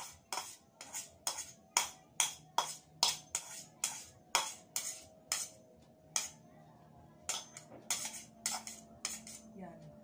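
Spatula scraping the inside of a small bowl to get two eggs out into a mixing bowl: quick, sharp scraping strokes about two or three a second, thinning to a few spaced strokes in the second half.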